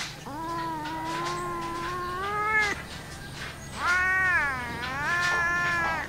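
Grey tabby-and-white domestic cat giving two long, drawn-out meows. The first holds about two and a half seconds and rises in pitch at its end. The second dips and then rises again.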